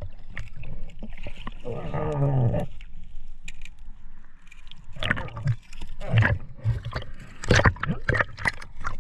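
Underwater sound picked up by a camera below the surface while snorkeling: gurgling water and muffled movement. There is a short pitched groan falling in pitch about two seconds in. In the second half comes a run of sharp clicks and knocks.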